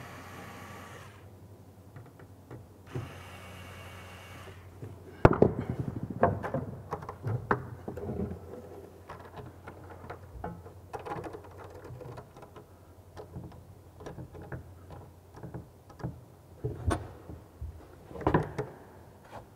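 Small cordless screwdriver motor running in two short bursts, driving the screws of pipe clamps on the wall. These are followed by irregular sharp knocks and clicks of hand work on the pipes, the loudest about five seconds in.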